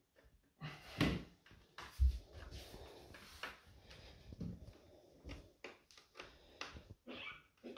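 Handling knocks and clicks from a screwdriver and the LCD TV's metal back chassis as it is worked on by hand: a sharp clack about a second in, a dull thump about two seconds in, then scattered lighter taps.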